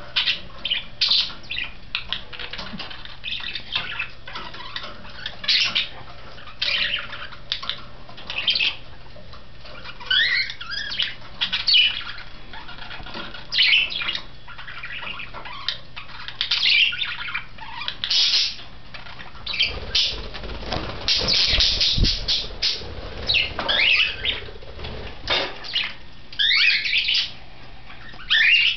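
Pet budgerigars chirping and squawking: short, bright, sweeping calls, sometimes singly and sometimes in quick runs. A few seconds of low rumbling noise come about two-thirds of the way through.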